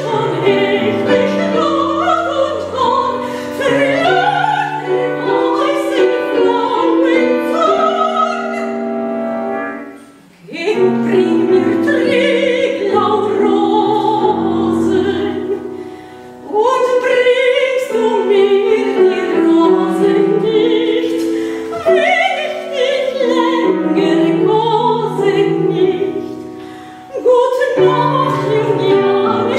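A woman singing in classical operatic style with vibrato, accompanied by a grand piano, in phrases broken by short pauses about ten seconds in, around sixteen seconds, and near the end.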